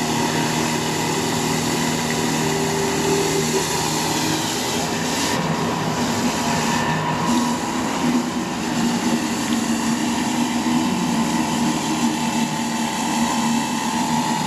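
Stihl RB400 gas pressure washer running steadily: an engine hum under the hiss of the water jet blasting dirt off the concrete driveway.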